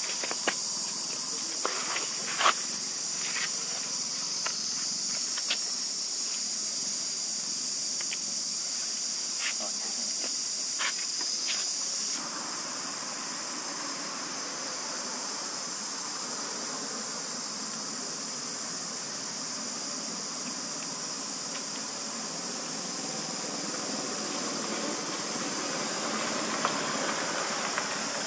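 Steady high-pitched insect chorus, with scattered light clicks in the first half. A motor vehicle passes near the end.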